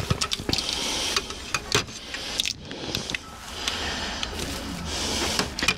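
China crockery clinking: plates knocking against each other and the wire shelving as they are picked up and turned over, with a string of sharp, irregular clicks over a steady rustle.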